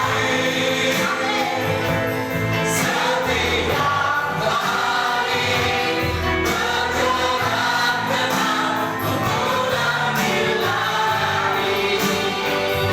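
Live worship music: a band plays while a choir or congregation sings a gospel song.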